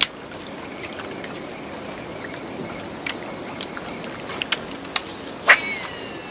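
Shimano Exsence DC baitcasting reel being cast and reeled in: a sharp click right at the start, a few lighter clicks while retrieving, and near the end a louder click followed by a short whine that falls in pitch as the spool spins on a cast.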